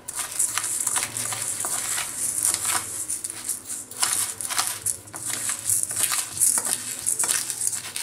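Metal spoon stirring pearl millet seeds in a stainless steel bowl: a continuous dry rustle of tumbling grain with frequent scrapes and clinks of the spoon against the steel.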